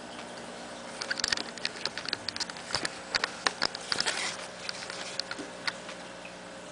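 Camera handling noise: a rapid, irregular run of small clicks and taps about a second in, thinning out near the end, as the camcorder is moved and repositioned. A faint steady hum runs underneath.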